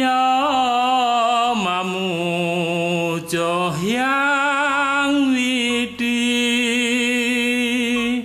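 Background music: a single voice singing long, slow held notes with vibrato in a chant-like style, in three phrases with short breaks about three and six seconds in; the pitch drops partway through the first phrase.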